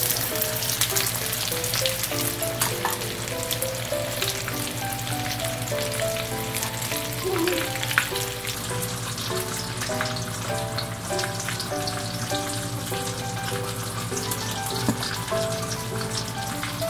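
Breaded tilapia fillets sizzling and crackling as they shallow-fry in hot oil in a pan. Light background music with a stepping melody plays underneath.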